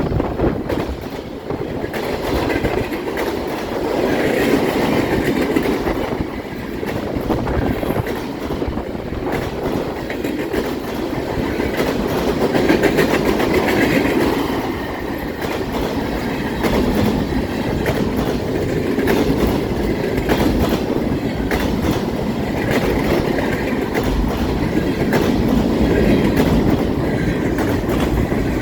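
A long freight train's cars rolling steadily past, steel wheels rumbling and clicking rhythmically over the rails.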